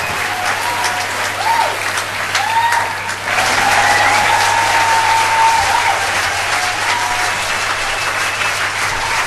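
Theatre audience applauding steadily, with voices calling out and cheering over the clapping.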